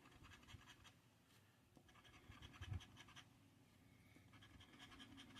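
Faint scraping of the coating being scratched off a lottery scratch-off ticket, in two spells of quick short strokes with a brief pause between.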